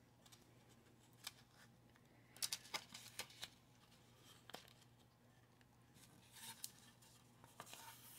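Faint, scattered rustles and soft taps of a sheet of peel-backed paper being pressed and smoothed into a small wooden tray by hand, with a cluster of them about two and a half to three and a half seconds in.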